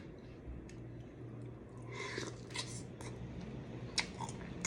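Close-up mouth sounds of eating seafood: wet chewing and lip-smacking with a few short sharp clicks.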